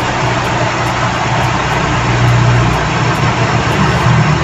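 Toyota 2E four-cylinder engine idling steadily with the hood open, with a steady rushing noise behind it.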